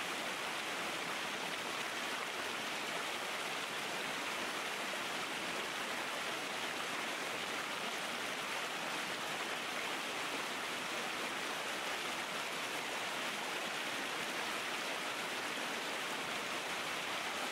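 River rapids: water rushing over rocks as a steady rush of white water.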